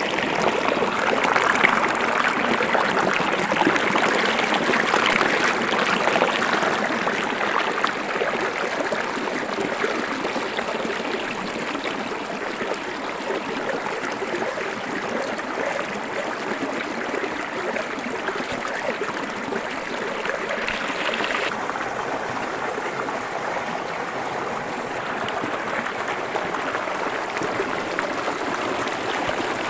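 Small stony forest stream running: a steady, even rush of water. About two-thirds of the way through, its higher hiss drops a little.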